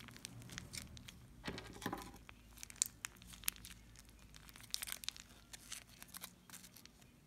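Plastic decorating bag of icing crinkling as it is squeezed and handled, heard as faint, irregular crackles.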